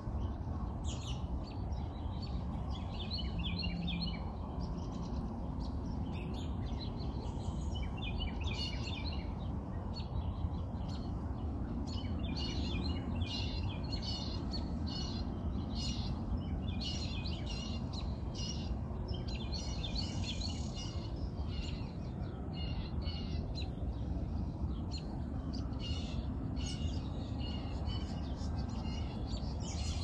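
Several small birds chirping in quick, repeated bursts throughout, over a steady low background rumble.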